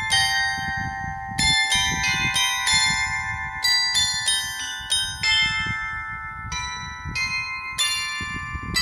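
Carillon of small bells on the outside of a clockwork tower playing a slow tune during the figure procession, one struck note every half second to second, each ringing on under the next.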